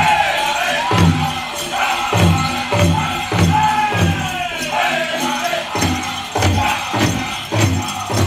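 Powwow drum group singing a men's chicken dance song: high, falling unison voices over a big powwow drum struck together about twice a second.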